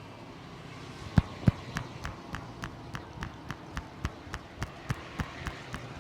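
Percussive head massage: hands striking a person's head in a rhythm. Two sharp, loud strikes come about a second in, then a steady run of about three strikes a second.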